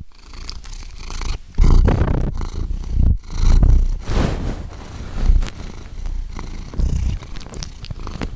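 Domestic cat purring very close to the microphone. The low purr rises and falls in uneven swells, and a few small clicks are mixed in.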